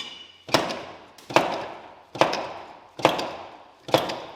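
Hammer blows driving a Polaris RZR axle out of its wheel hub: five hard, evenly paced strikes a little under a second apart, each with a short ringing decay.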